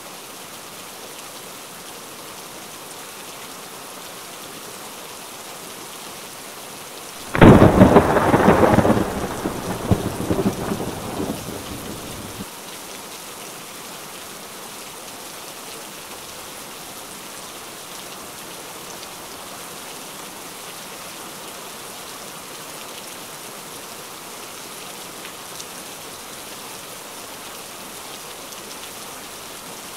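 Steady rain falling, with a sudden loud, crackling thunderclap about seven seconds in that dies away over about five seconds.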